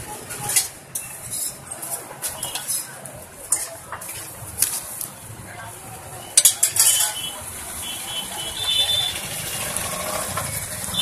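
Metal utensils clinking and scraping against a large iron griddle and steel bowls, over a steady sizzle of oil where potato patties are shallow-frying on the griddle. A quick cluster of sharp clatters about six and a half seconds in is the loudest.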